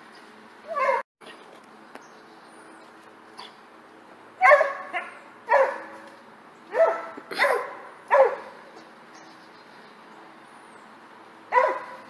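A small dog barking: about eight short barks, each dropping in pitch, most of them bunched together in the middle.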